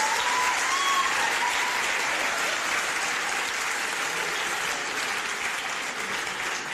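Audience applauding and laughing after a comedian's punchline, a dense, steady clapping that eases slightly near the end.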